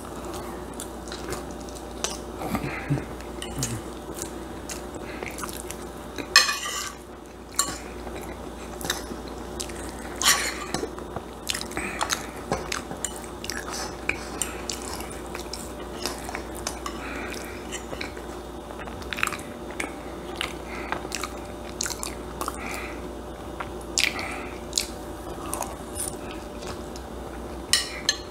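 Close-up eating sounds: a person chewing and biting soft shepherd's pie, with a fork clinking and scraping on a plate in scattered sharp clicks. A steady low hum runs underneath.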